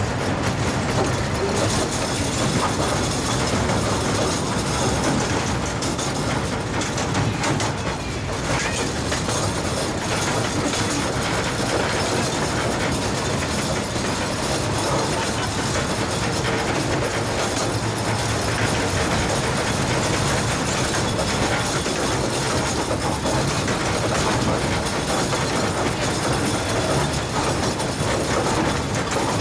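15-inch-gauge miniature passenger train heard from aboard a rear car while running: a steady rolling noise of the wheels and cars on the track.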